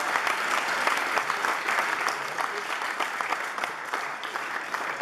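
Audience applauding: dense, steady hand clapping that eases slightly toward the end.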